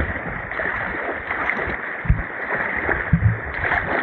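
Shallow mountain river rushing and splashing around inner tubes, heard close to the water surface as a steady churning hiss. A couple of short low thumps come about two and three seconds in.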